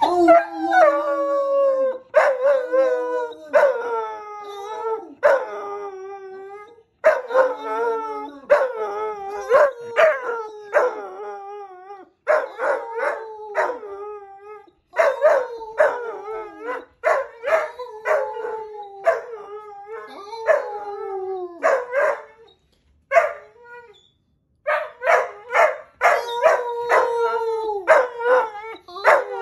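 Wolfhound puppy howling over and over: long, wavering, pitched howls in runs of several, with short barks or yips cutting in between them and brief pauses every few seconds.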